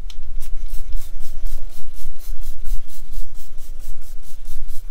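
Trigger spray bottle squeezed rapidly over and over at the gelcoat, a quick train of short hissing squirts about five a second, over a steady low rumble.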